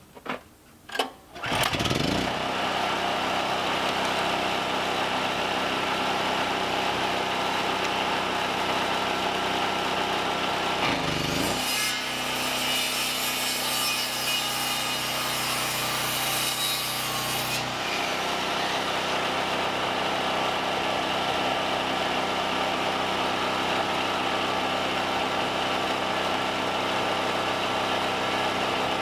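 Portable generator pull-started, catching after a few quick pulls and then running steadily. About eleven seconds in, a circular saw starts up and cuts through a wooden board for about five seconds before stopping, with the generator running on underneath.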